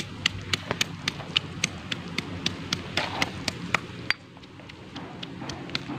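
Stone pestle pounding shallots, garlic, chillies and dried anchovies in a stone mortar: steady knocks at about four strokes a second, easing off about four seconds in.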